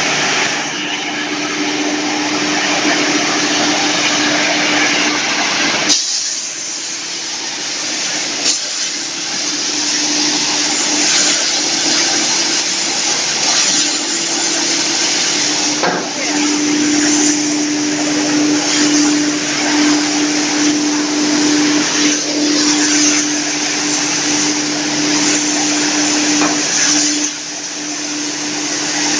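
Wood hammer mill and its centrifugal blower running, a loud steady whirring with a hum under it, broken by a few sharp knocks.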